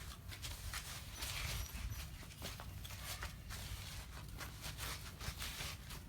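Belgian Malinois puppies scuffling about: an irregular run of soft taps and scrapes over a low rumble.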